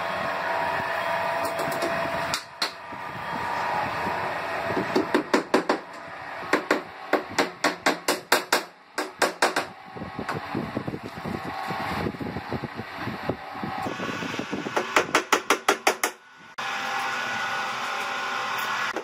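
Hammer tapping the metal sliding-glass channel into place along the cabinet edge, in quick runs of light, evenly spaced strikes about five a second.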